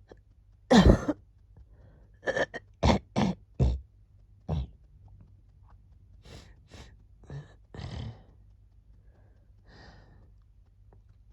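Coughing from a cold: one hard cough about a second in, then a quick run of four coughs and another just after, followed by several softer coughs that trail off.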